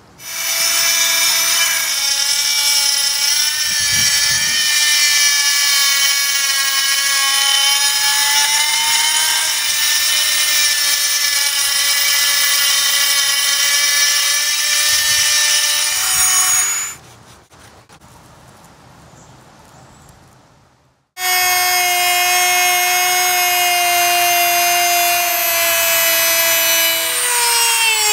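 High-speed rotary tool spinning a carbide hole-saw sanding band, a steady high whine with many overtones as it grinds ceramic wall tile. The whine stops about 17 seconds in, starts again about 21 seconds in as the band cuts into wood, and its pitch dips briefly near the end.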